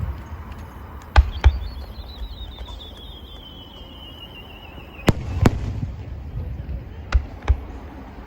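Fireworks bursting as sharp bangs in three pairs, with a warbling whistle falling slowly in pitch between the first and second pair.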